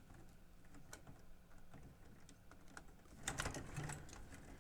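Faint, scattered light clicks and taps, with a small cluster about three and a half seconds in: a screwdriver removing the small screws that hold the cassette door on a Sony TC-K61 cassette deck.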